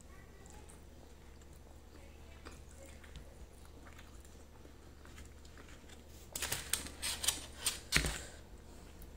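Close-up eating sounds: quiet chewing and mouth sounds of grilled chicken eaten by hand. About six seconds in comes a burst of sharp crackles and clicks as fingers pull food apart in a plastic meal tray.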